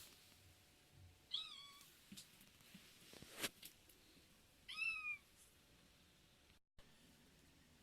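A cat meowing twice, two short high calls a few seconds apart, with a sharp click between them.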